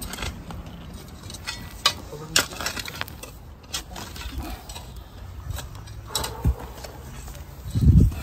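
Scattered sharp clicks and knocks, with a louder low thump near the end.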